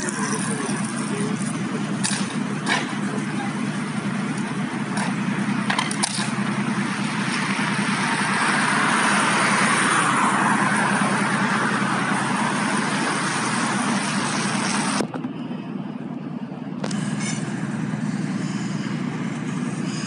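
A steady engine rumble and hiss at a fire scene, broken in the first few seconds by several sharp cracks and knocks as boards are forced off a burning wooden building. The noise swells around the middle, drops suddenly about three quarters through, then picks up again.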